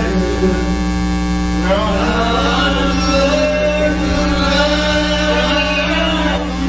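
Steady electrical mains hum, with music and a singing voice faintly beneath it from about two seconds in.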